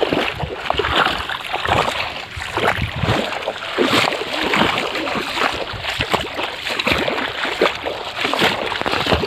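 Muddy floodwater in a flooded paddy field splashing and sloshing in a rough, irregular run of short splashes.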